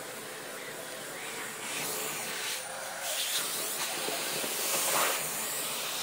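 Vacuum cleaner running on a cat being groomed with it: a steady rush of hissing air whose level rises and falls as the nozzle moves over the fur.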